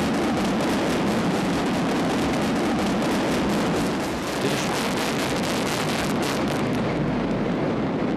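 A continuous rumble with dense crackling as a long concrete viaduct collapses in an explosive demolition, with concrete and debris coming down.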